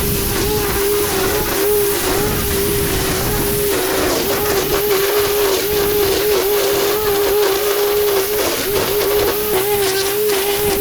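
Small motor of a power tool running steadily at a constant high pitch that wavers slightly, over a loud rushing hiss.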